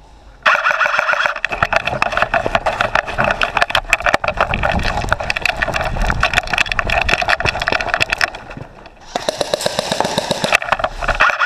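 Airsoft electric rifle (AEG) firing full-auto: the motor-driven gearbox whirring with rapid clicks from each shot, in a long burst that starts about half a second in, breaks off briefly near the three-quarter mark, then starts again.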